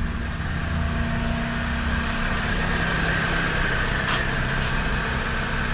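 Jeep Patriot's four-cylinder engine idling steadily, with two light clicks about four seconds in.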